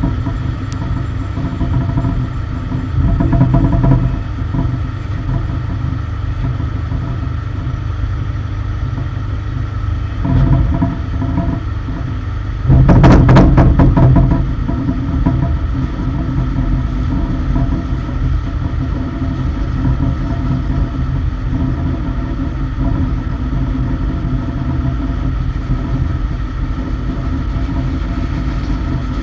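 A cargo loader's engine running steadily on the apron, with a steady whine over it. It swells briefly twice, and about thirteen seconds in a louder burst of rattling clatter lasts a second or so.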